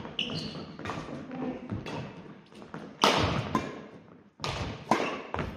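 Badminton doubles rally: rackets striking the shuttlecock and players' footfalls and shoe squeaks on a wooden gym floor, echoing in the large hall. Two loud, sharp hits come about three and four and a half seconds in.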